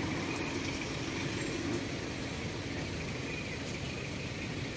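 Steady outdoor background hum of distant traffic, with a few short high chirps about half a second in.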